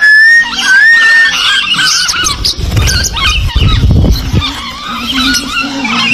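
A flock of lovebirds chattering in quick, squeaky high chirps, with a clear whistle that rises and then holds, twice near the start. A low rustle of wings fluttering comes in the middle.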